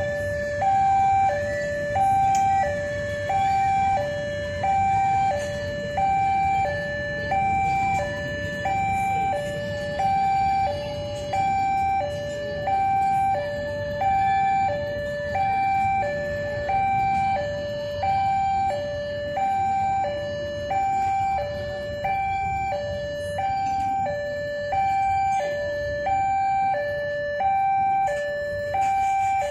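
Railway level-crossing warning alarm sounding a steady two-tone high-low pattern, about one pair a second, the signal that a train is approaching. Low traffic rumble from idling vehicles runs underneath.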